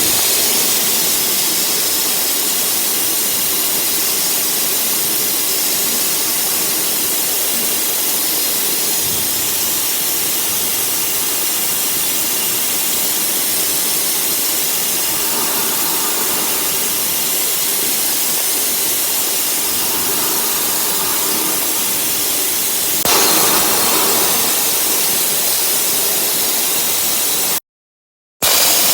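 Steady, loud hiss of a CNC cutting machine at work. It grows louder and brighter about 23 seconds in, and cuts out briefly near the end.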